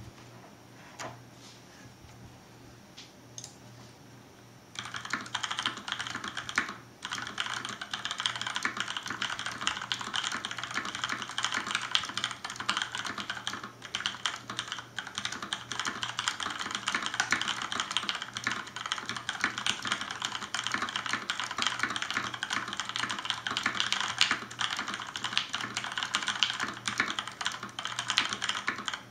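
Typing on a Cherry MX mechanical keyboard standing on its rubberized feet: a few stray key clicks, then a dense, fast run of keystrokes from about five seconds in, with a brief break just after.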